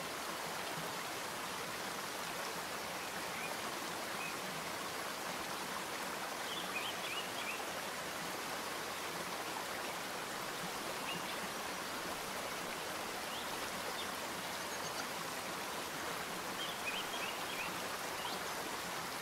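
A steady, even hiss, with a few faint high chirps about a third of the way in and again near the end.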